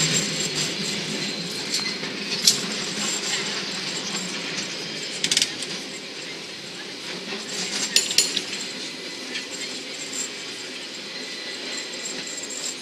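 San Francisco cable car running along its rails: a steady rattling rumble, broken by sharp metallic clinks and clanks a few times.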